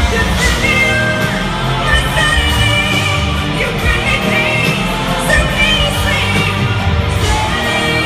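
Live pop ballad: a female lead voice singing over a band with a steady bass line.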